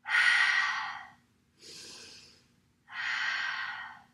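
A woman breathing deeply and audibly: two loud, roughly second-long breaths about three seconds apart, with a softer breath between them.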